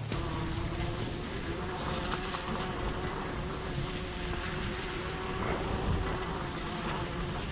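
A vehicle engine running steadily under way, a constant low rumble with a faint steady hum.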